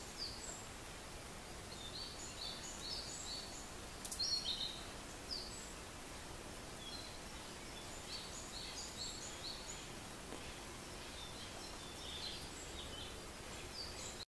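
Several small birds chirping and calling in woodland, many short high notes in scattered runs over a steady background hiss, with a louder burst of calls about four seconds in.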